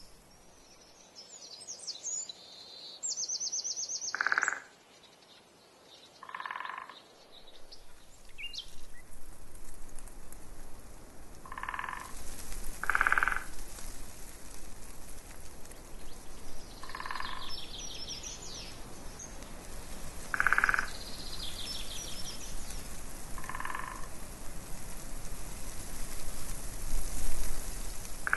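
A frog croaking every few seconds, about seven short croaks, while songbirds sing brief trills and chirps between them. A steady hiss with a low rumble of wind on the microphone sets in about a third of the way through.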